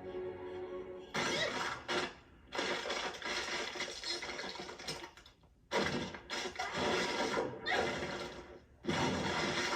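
Cartoon sound effects of ice cracking and breaking apart: about five loud crunching bursts in a row, separated by short gaps.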